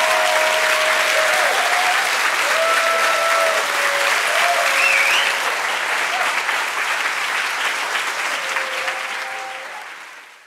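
Audience applauding steadily, with a few voices calling out among the clapping. It fades away near the end.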